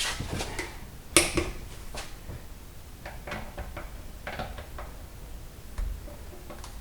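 Metal tools clicking and clinking on the wheel's lug bolts: a few sharp clinks, then runs of quick, light ticks like a torque wrench being ratcheted.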